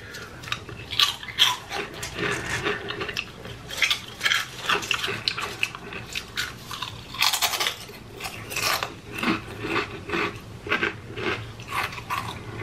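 Irregular clinks, knocks and rustles of dishes, utensils and food being handled at a table, denser for a moment about halfway through.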